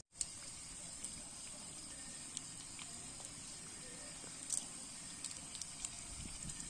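Night insects chirring in a faint, steady high hiss, with a few light clicks of tongs against a metal camping pan.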